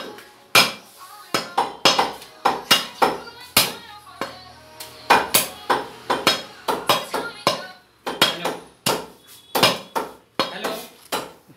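Heavy butcher's cleaver chopping a goat head into pieces on a round wooden log chopping block: a fast, irregular run of sharp chops, about two or three a second, with short pauses.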